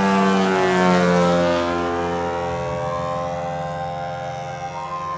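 RC model aerobatic plane's motor and propeller whine sweeping past, its pitch gliding as it passes. It is loudest about a second in, then fades off. Show music with long held notes plays underneath.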